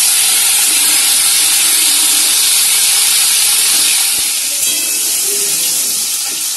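Chopped tomatoes sizzling and hissing loudly as they hit hot oil in a kadai, throwing up a burst of steam. The sizzle starts suddenly and stays steady, easing a little about four seconds in as the tomatoes are stirred.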